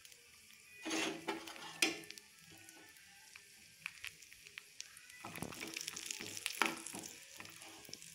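Cashews and raisins sizzling as they fry in a pan of hot fat, a soft steady hiss broken by a few sharp clicks, about a second in and again after five seconds.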